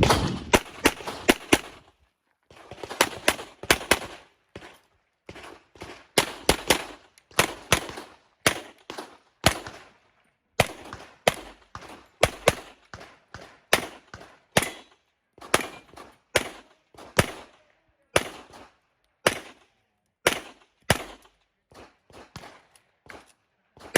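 Handgun fire in quick strings of two to four shots, a new string about every second, with short pauses between.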